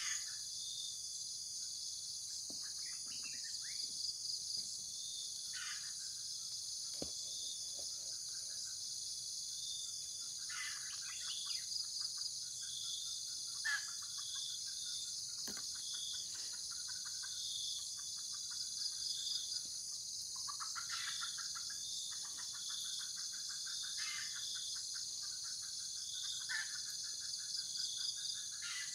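A steady chorus of crickets and other insects, with a chirp repeating about once a second. Short trilled animal calls break in every few seconds.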